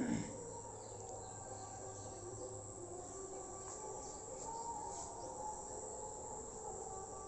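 Faint steady background ambience with high chirping, with a brief thump right at the start.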